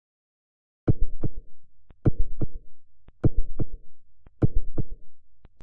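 Heartbeat sound effect: four lub-dub double beats, about one every second, starting about a second in after silence.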